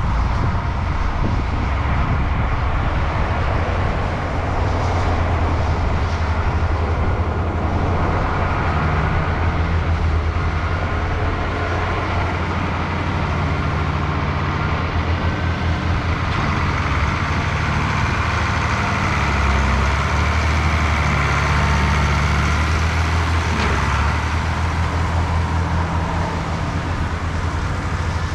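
Heavy diesel farm machinery running steadily: a low engine throb with a broad mechanical rush over it.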